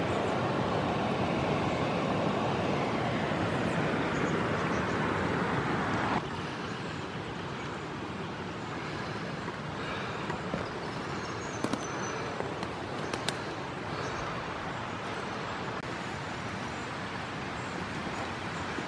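Steady rushing outdoor background noise. It is louder for the first six seconds and drops abruptly at about six seconds, with a few faint clicks later on.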